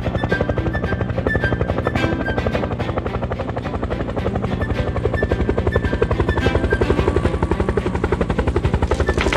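Helicopter rotor sound effect, a fast steady chop, over cheerful background music.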